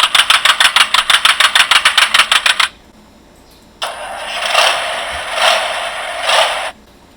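Engine-starting sound effect from a children's vehicle sound book, played through its small built-in speaker. A starter cranks in fast, even pulses for nearly three seconds. After about a second's pause, the engine runs and revs up three times before cutting off.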